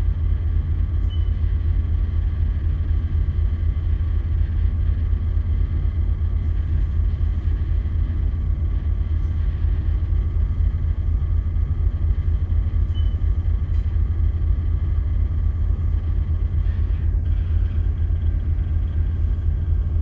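Ship's engine and machinery running, heard on the bridge as a steady low rumble with a faint hum of several steady higher tones.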